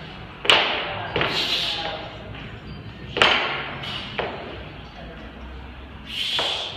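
A loaded axle (thick-handled strongman barbell) with iron plates thudding and clanking as it is cleaned to the chest and pressed overhead. There are three sharp hits about three seconds apart, each followed by a short rattle.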